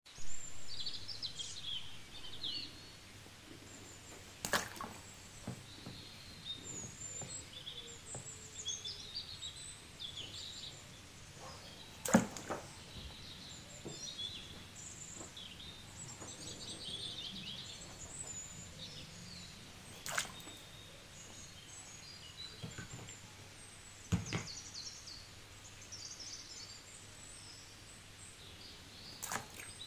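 Small birds chirping and twittering throughout. About five short, sharp knocks and plops are spread across it, the loudest about twelve seconds in, as hard plastic toy animals drop into a plastic tub of water.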